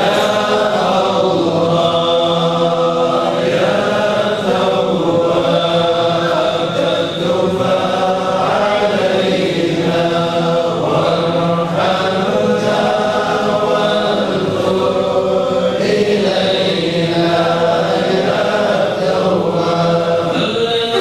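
A congregation of men chanting together in Islamic devotional chant, a continuous melodic line with no pauses.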